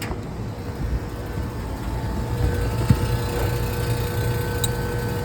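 Carrier rooftop HVAC unit running steadily just after start-up, with the blower motor and both the first- and second-stage compressors running: a low hum with a steady whine over it. The breaker is holding, so the unit is no longer tripping it.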